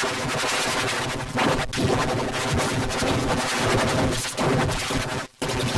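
Harsh, distorted noise from heavy effects processing of a cartoon soundtrack, dense and loud, with a few sharp cracks and a brief cut-out about five seconds in.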